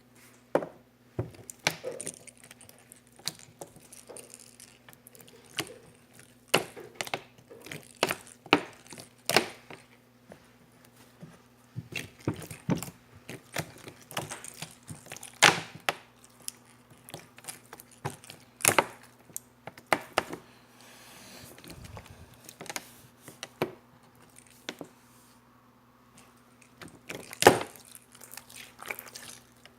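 Hands playing with jiggly slime: irregular sharp pops and crackles as it is pressed and stretched, with a steady low hum underneath.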